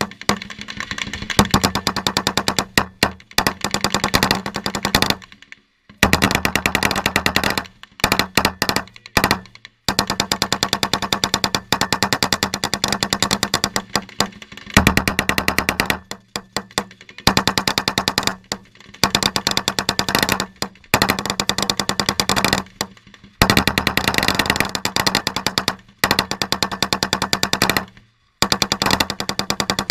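Sustained automatic machine-gun fire from an infantry weapons squad's firing line. Long strings of rapid shots overlap and are broken by short pauses every few seconds.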